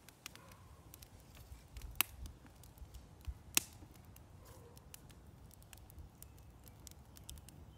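Wood fire crackling in a clay stove, faint scattered crackles with two sharper pops about two and three and a half seconds in.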